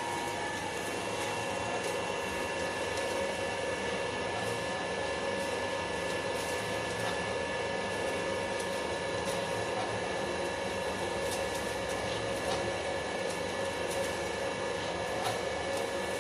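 Screw oil press machine running steadily while pressing silkworm pupae: a constant motor and gearbox hum with a few steady whining tones and light clicks now and then.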